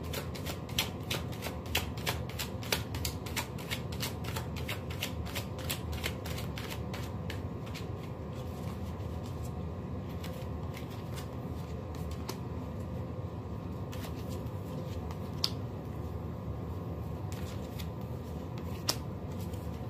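A deck of tarot cards being shuffled by hand: a quick run of light card slaps and flicks, about four or five a second, that stops about eight seconds in, with two single clicks later on. A steady low hum runs underneath.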